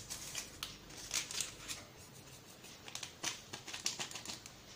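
Small paper sachet being torn open and crinkled, heard as scattered short crackles and rustles.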